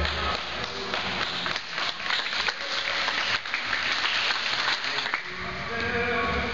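Audience applauding in a large gym, a dense crackle of clapping hands, with music starting up again about five seconds in.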